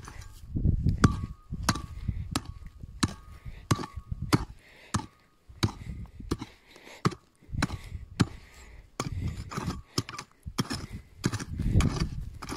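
Short-handled digging pick chopping into dry, stony soil in repeated strikes, about one to two a second, digging out a metal detector target. A faint steady high tone runs under the first several strikes.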